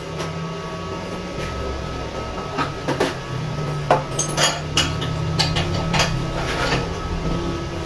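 Scattered knocks and clinks as parts are handled and set in place on a bench drill press, a dozen or so, most of them bunched in the second half, over a steady low hum.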